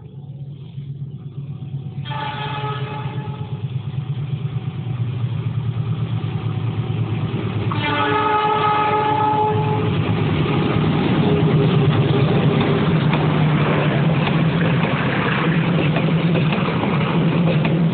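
Passenger train approaching behind a diesel locomotive. The locomotive's horn sounds twice, once about two seconds in and again, louder, about eight seconds in, over a low engine rumble that keeps growing louder. From about ten seconds in, the loud running noise of the train passing close by fills the rest.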